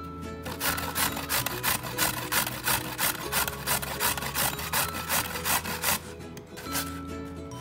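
A carrot being scraped down a stainless steel box grater in quick, regular strokes, with a short break about six seconds in.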